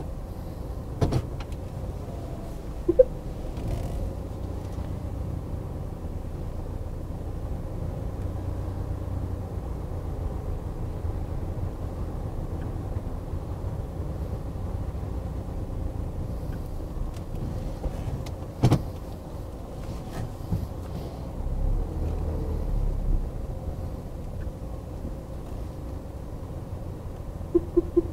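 Renault Trafic's diesel engine idling as the van creeps at low speed, heard from inside the cabin, with a single short beep about three seconds in and a sharp click later. Near the end the parking sensors start beeping rapidly, about six beeps a second, warning that the van's front is close to an obstacle.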